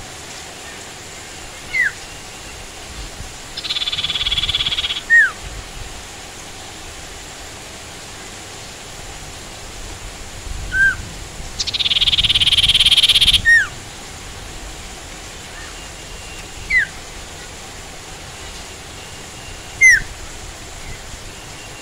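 Sirtu songbird calling: short, sharp single chip notes repeated every few seconds, and twice a longer fast buzzy trill of a second or more. A steady hiss of rain runs underneath.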